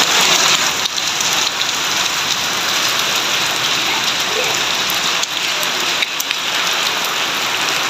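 Heavy downpour: a steady hiss of rain pouring onto open ground, with a few sharp ticks of drops landing close by.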